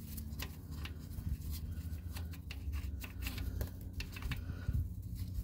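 A gloved hand refitting the fill plug on a Smart car's transmission case: scattered small clicks and rustles of handling, over a low steady rumble.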